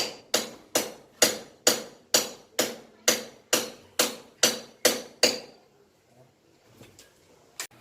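Hammer striking in a steady rhythm, about a dozen sharp blows roughly two a second, stopping a little after five seconds in; one more sharp tap near the end.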